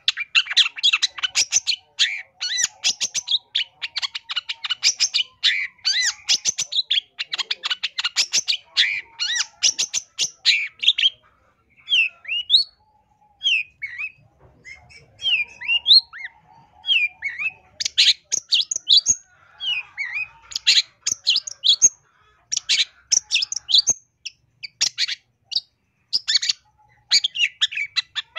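Long-tailed shrike (cendet) singing a varied song packed with imitated calls: fast chattering runs for the first ten seconds or so, then a string of separate rising whistled notes, then dense rapid phrases again.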